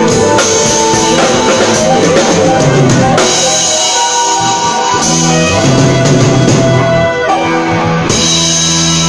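Drum kit played in a drum solo, with held pitched chords underneath that change every second or two.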